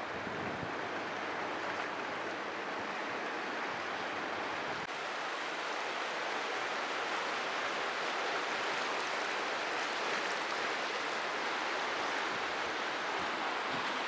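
Steady rush of the Köprüçay River's rapids running through its rocky limestone canyon, getting slightly louder about five seconds in.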